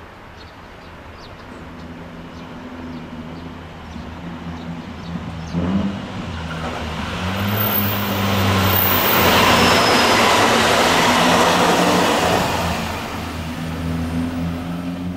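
A JR Kyushu electric train passing by on the track. Its running noise and low motor hum build up, are loudest about nine to eleven seconds in, then ease off.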